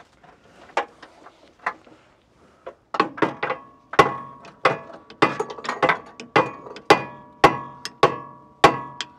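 Hammer blows on steel in a Jeep's engine bay: a few light taps, then from about three seconds in a steady run of hard strikes about every half second or so, each with a short metallic ring.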